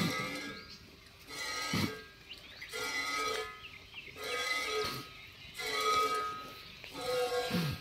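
Sheep and goats bleating, a call roughly every second.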